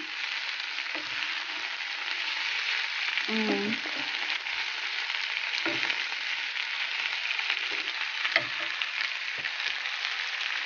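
Chicken pieces and sliced onions sizzling steadily in a frying pan, stirred with a wooden spoon that knocks against the pan every couple of seconds.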